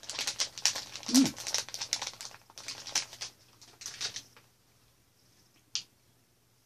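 Plastic candy bag crinkling as it is handled, rapid crackles for about four seconds that then die away, followed by a single sharp click near the end.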